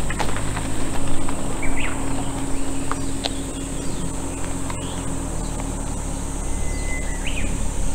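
Steady high-pitched chorus of insects, with a couple of short bird chirps, over a low rumble.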